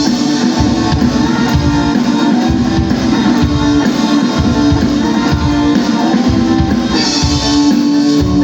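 A live band playing a funk song, guitars over a steady drum beat.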